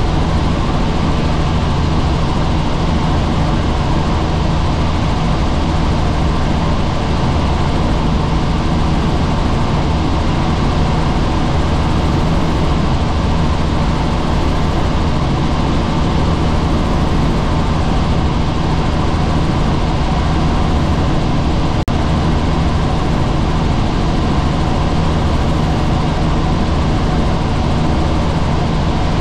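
Helicopter in flight: a steady, loud blend of rotor and engine noise with a constant low hum. It is broken once by a split-second dropout about three-quarters of the way through.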